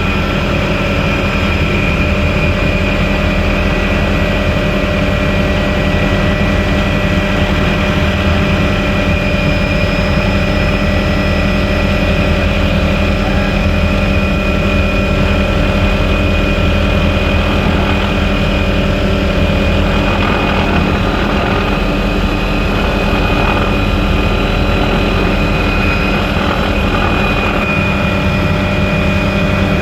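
Helicopter in flight: steady rotor and turbine engine noise, heard loud through the open, doors-off cabin.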